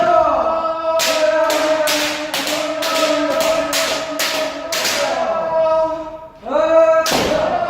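Kendo trainees shouting a long, held kiai together. Through the middle there is a quick run of sharp smacks, about two or three a second. A fresh shout rises near the end.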